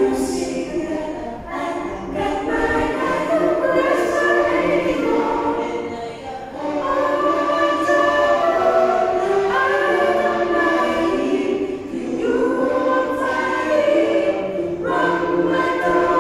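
A small ensemble of five women's voices singing a cappella in harmony, with long held notes in phrases broken by brief breaths about six and twelve seconds in.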